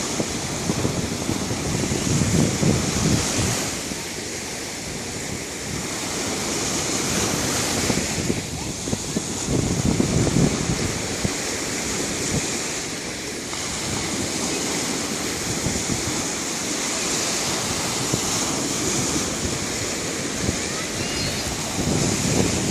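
Sea waves washing onto a shore: a continuous hiss of surf that swells louder a few times as larger waves break.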